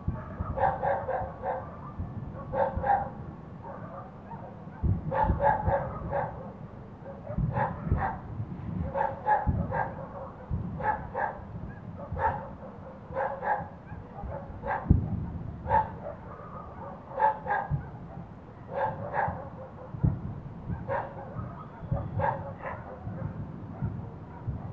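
A dog barking over and over, usually two or three barks at a time, every second or two, over a low rumble.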